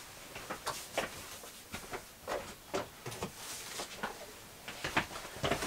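Scattered light clicks and knocks of handling in a small workshop, irregular and a few a second.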